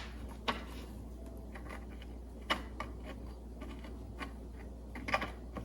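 A few light clicks and taps, scattered singly with a small cluster near the end, as the pieces of a homemade puzzle box are handled and turned, over a low steady hum.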